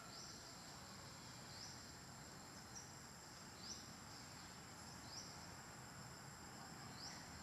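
Faint insect chorus: a steady high buzz, with a short rising chirp repeating every one and a half to two seconds.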